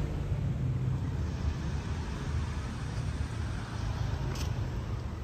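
Low, steady rumble of slow-moving car traffic at street pace, slightly louder in the first second.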